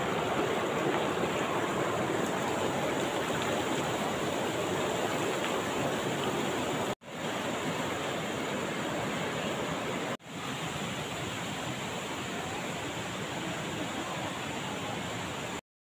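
River water rushing over rocks: a steady noisy rush, broken twice by brief dropouts, that stops suddenly near the end.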